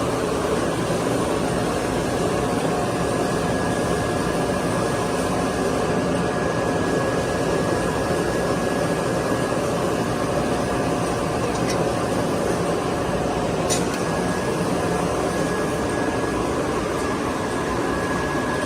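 A 52-inch wide belt sanding and edge-rounding machine running steadily: a dense, even machine noise with a steady whine on top. There is a single sharp tick about three-quarters of the way through.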